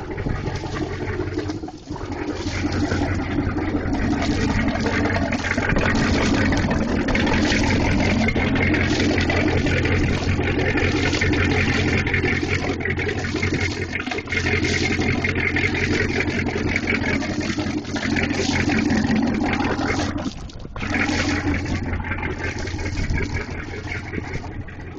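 Fuel-injected PCM 6.0L V-8 inboard of a wooden Chris Craft runabout running steadily at idle on the trailer, its wet exhaust spilling cooling water out of the transom outlets.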